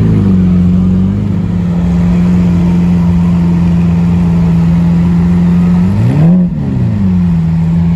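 Lamborghini Aventador V12 engines idling steadily, with one quick throttle blip about six seconds in: the note rises sharply and drops straight back to idle.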